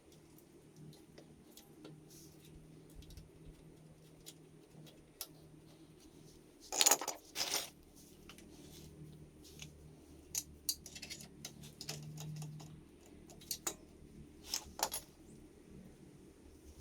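Scattered metallic clinks and clicks of tools and exhaust hardware being handled while a motorcycle slip-on exhaust is fitted. The loudest cluster comes about seven seconds in, and a few smaller clinks follow later.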